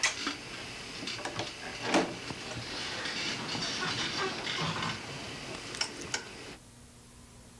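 Bedclothes and a blanket rustling as two people shift and settle into bed, with a few sharp clicks. The rustling cuts off suddenly near the end, leaving a faint low hum.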